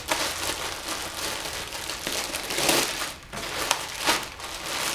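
Clear plastic poly bag crinkling and rustling as a sweater is opened and pulled out of it. There are louder rustles at about two and a half and four seconds in.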